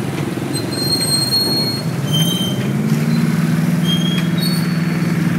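A low engine drone that grows stronger about two seconds in and then runs steadily, with several short, high-pitched metallic squeals over it.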